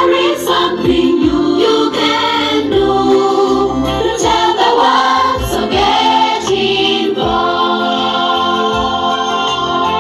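Music: a choir singing a gospel song.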